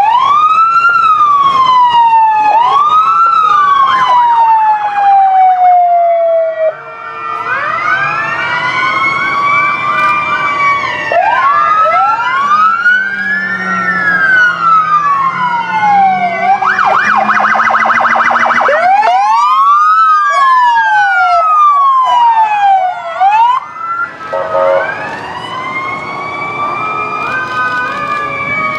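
Several emergency-vehicle sirens sounding at once, their rising and falling wails overlapping. About 17 seconds in, one switches to a fast yelp that stops abruptly a couple of seconds later.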